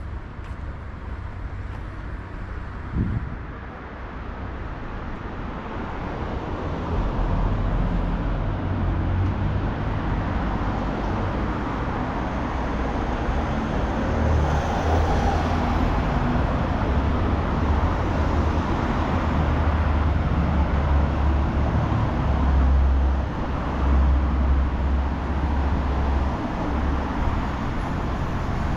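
Urban street traffic noise, with the low rumble of motor vehicles building up about seven seconds in and staying loud. A single sharp knock comes about three seconds in.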